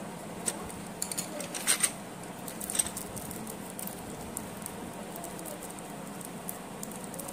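Cardboard pencil box handled and an eraser taken out of it: a quick cluster of light clicks and rustles in the first three seconds, then only faint steady background noise.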